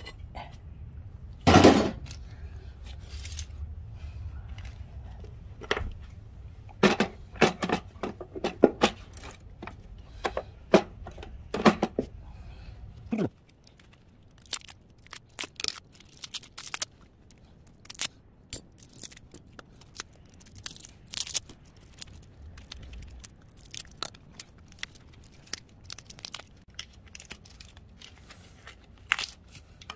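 Thin steel transformer core plates clinking and clattering as they are pulled out one by one and dropped onto a pile of plates, with a loud ringing clack about a second and a half in. A low hum in the background cuts off about halfway through.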